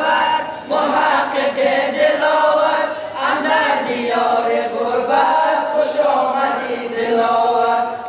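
A boys' choir singing an anthem (sorood) together, with long held, gliding notes.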